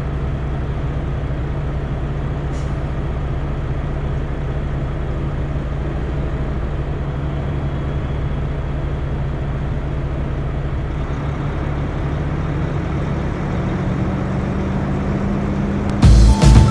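Volvo 780 semi truck's diesel engine running steadily as the truck rolls slowly, heard from inside the cab, with one short hiss a few seconds in. Music starts suddenly near the end.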